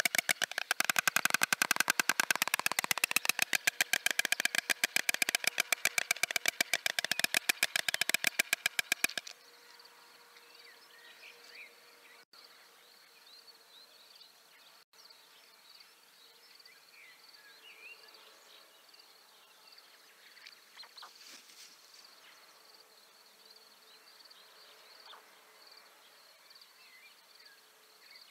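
White storks bill-clattering: a loud, rapid rattle of bill clicks that stops abruptly about nine seconds in, the greeting display of a mate arriving at the nest. After it, faint small-bird chirps over a thin steady high whine.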